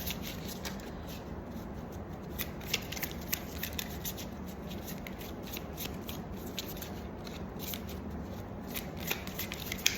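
Tarot cards being handled: scattered light clicks and slides of card stock, over a steady low hum.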